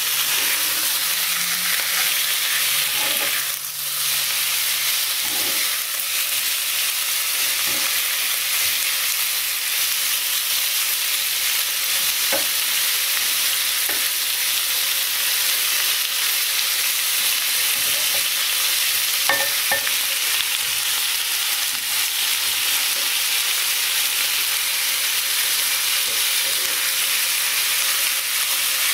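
Fish fillet pieces sizzling steadily in hot oil in a non-stick frying pan, with a few light scrapes and knocks of a plastic spatula as the pieces are stirred and turned.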